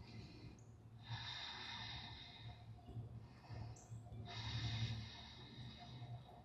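A person breathing audibly, two long, soft breaths a few seconds apart, over a faint low hum.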